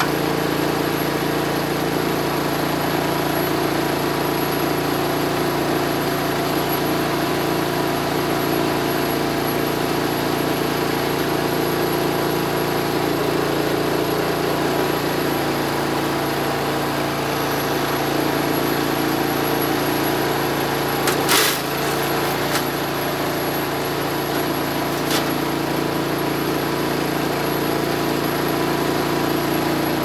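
Small gas engine of a Landworks compact wood chipper running steadily. A few sharp knocks sound a little over two-thirds of the way through, with one more shortly after.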